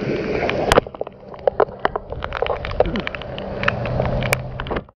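Wind and road noise buffeting a motorcyclist's camera microphone, broken by many sharp knocks and clicks, with a loud thump about a second in. A motor vehicle's engine hum comes through in the second half.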